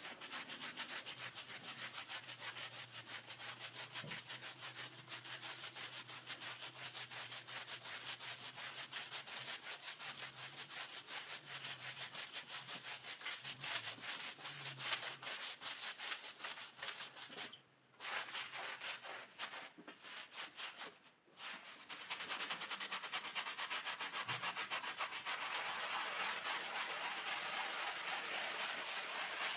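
Stiff bristle brushes scrubbing a soapy, wet, muddy rug in quick back-and-forth strokes. A long-handled push brush does the scrubbing first, with two short pauses past the middle. From about two-thirds of the way in, a hand-held scrub brush takes over, and the scrubbing is louder and denser.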